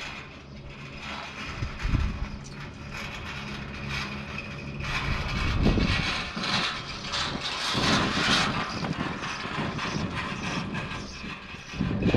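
Riblet double chairlift running, heard from a chair on the line: a steady low hum, then from about five seconds in a louder rumbling clatter as the chair's grip rolls through a tower's sheave train, easing again after about four seconds.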